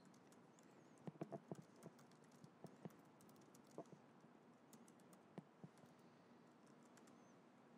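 Faint keystrokes on a laptop keyboard, in short irregular bursts of clicks that thin out to single taps.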